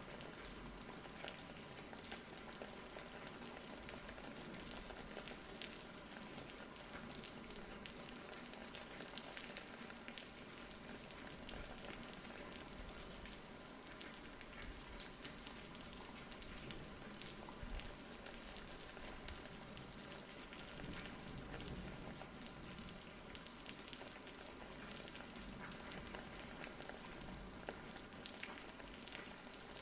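Faint, steady rain-like hiss with scattered soft crackles.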